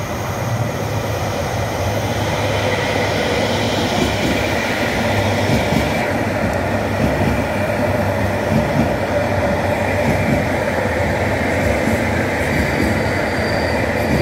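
Steady running noise of electric trains at a station platform: an EP09 electric locomotive rolling slowly in with its passenger coaches while a Koleje Mazowieckie electric multiple unit runs past on the adjacent track. A faint humming tone sits under the wheel and rail noise.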